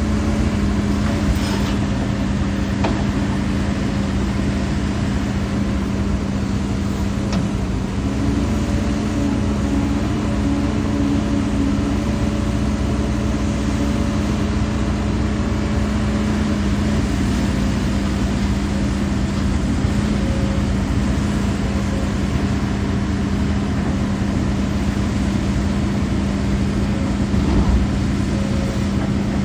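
Hidromek HMK230LC excavator's diesel engine running steadily at working speed, a constant drone that holds its pitch, with a few faint knocks and a brief louder moment near the end.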